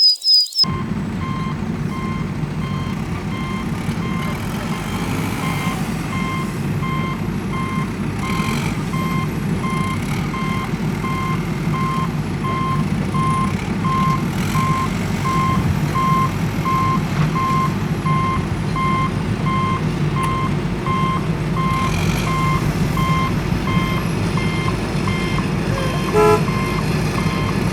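Heavy vehicle's engine running steadily while its reversing alarm beeps about twice a second, a single pitched beep repeated evenly, stopping just before the end.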